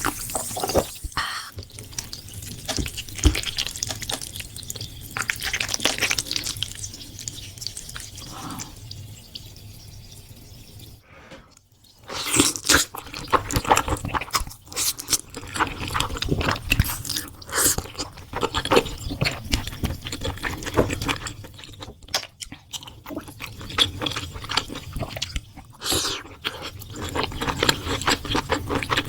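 Close-miked eating sounds: a person chewing creamy shrimp pasta and crispy fried shrimp, with wet mouth sounds and crunching. It eases off for a few seconds, then sharp crunchy bites come again about twelve seconds in.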